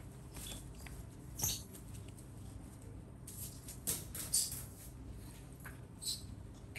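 Disposable diaper being handled and unfolded, with a few short, faint crinkles and rustles scattered through, over a low steady hum.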